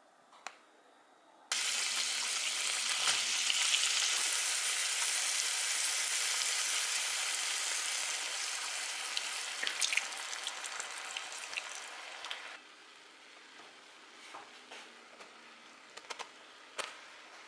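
Mushrooms and diced bacon sizzling in a frying pan, starting suddenly a second and a half in and slowly easing as cream is poured in. About twelve seconds in it drops to a quieter simmer of the cream sauce, with a few light taps and clicks as cooked tortellini are added.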